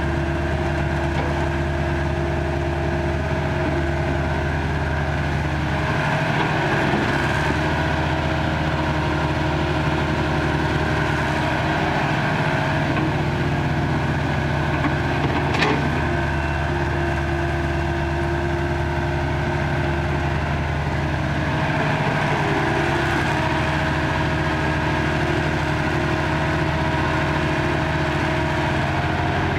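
Caterpillar excavator's diesel engine running steadily while it digs and swings loads into a dump truck. The engine note shifts several times as the hydraulics take load, and there is one sharp knock about halfway through.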